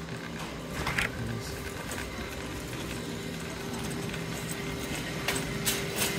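Shopping cart rolling along a store floor, its wheels and basket rattling, over a steady mechanical hum. There are a few sharp clicks about a second in and again near the end.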